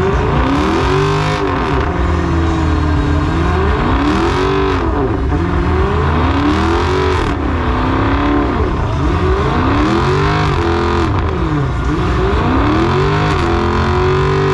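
Car engine revving hard and dropping back again and again during a burnout, about one rev every two seconds, over a steady rushing noise.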